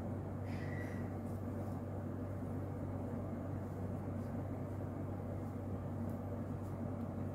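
Steady low hum with a hiss of room background noise, with a brief faint high tone about half a second in and a few faint soft clicks.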